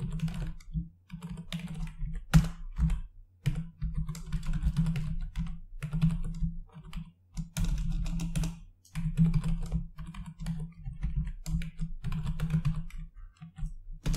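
Computer keyboard typing: quick runs of keystrokes broken by brief pauses.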